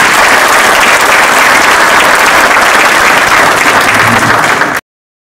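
Audience applauding, a dense and loud clapping from a large crowd, which cuts off suddenly near the end.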